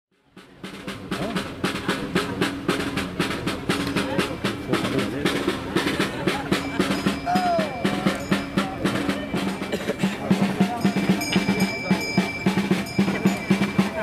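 A side drum beaten in a steady, continuous rhythm, with voices of people talking underneath.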